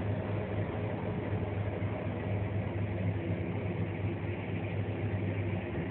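Passenger train running at a steady speed, heard from inside the carriage: an even low hum and rumble of the running gear on the rails.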